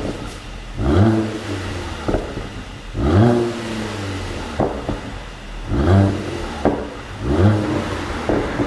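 Mercedes-AMG C43 engine blipped in quick revs, about four times, each falling back to idle. A few sharp pops from the exhaust come on the overrun between revs: the pop-and-crackle tune.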